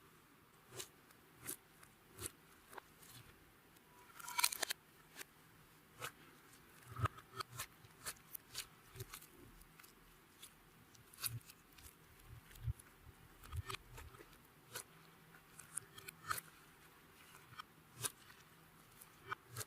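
Clear slime being mixed and pressed by hand, giving irregular small clicks and pops, with a louder crackly cluster about four seconds in.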